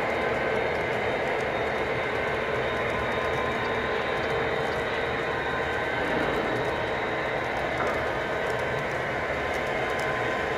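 Freight cars of a Lionel O-gauge model train rolling past on the track: a steady rolling rumble with faint scattered clicks.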